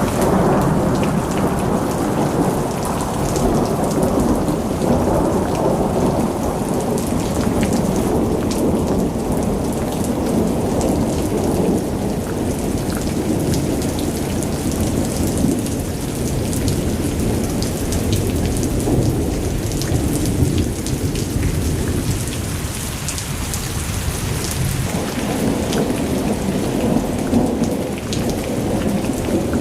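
Rain falling steadily, with thunder rumbling low and continuously underneath, swelling and easing slowly.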